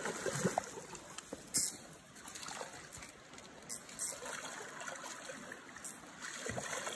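Hooked steelhead splashing and thrashing in shallow river water close to the bank: irregular sharp splashes over a steady wash of moving water.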